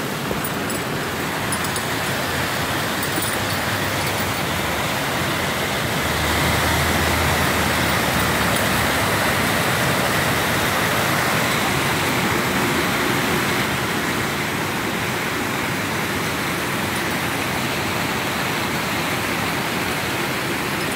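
Steady rushing of churning, foaming water pouring into the river, a constant hiss that grows a little louder about six seconds in.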